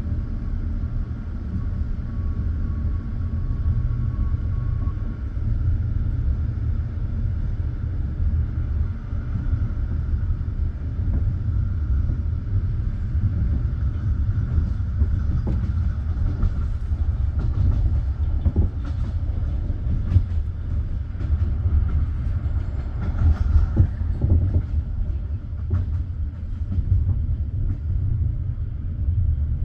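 Passenger train carriage rolling along the track, heard from inside: a steady low rumble from the wheels on the rails, with scattered clicks and knocks in the second half.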